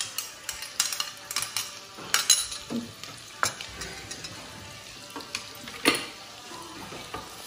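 Finely chopped onion sizzling as it goes into hot oil and cumin in a pressure cooker, with sharp clicks of a spoon against the bowl and pot, most in the first half and one loud click near six seconds.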